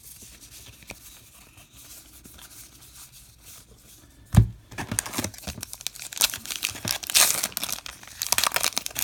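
Faint rustling of a stack of baseball cards, then a sharp thump about halfway through. After the thump comes the crinkling and tearing of a 2018 Topps Heritage Minor League baseball card pack wrapper being ripped open by hand, which goes on through the rest.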